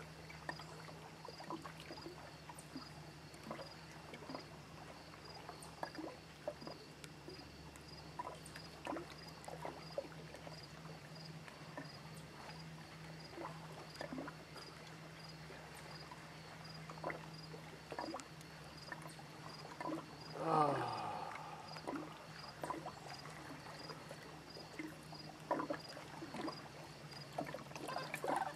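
Small lake waves lapping against a dock and the shore, with many small splashes and clicks. A faint, evenly pulsing insect chirp runs behind it. A little past two-thirds of the way through comes one short call that falls in pitch.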